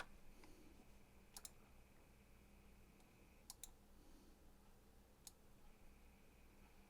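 A few faint clicks of a computer mouse over near silence: a quick double click about a second and a half in, another about three and a half seconds in, and a single click past five seconds.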